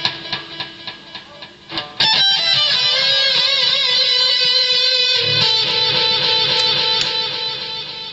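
Electric guitar played through a Boss ME-20 multi-effects pedal: a run of quick picked notes, then a loud strummed chord about two seconds in that rings with a wavering effect, and another chord about five seconds in that slowly fades.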